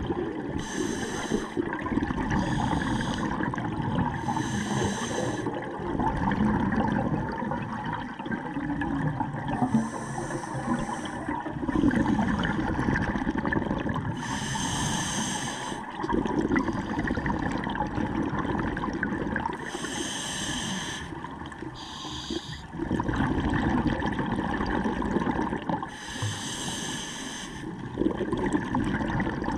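Scuba diver breathing through a regulator, heard underwater: a hiss of about a second on each inhalation, eight of them a few seconds apart, over a steady bubbling rumble of exhaled air and water.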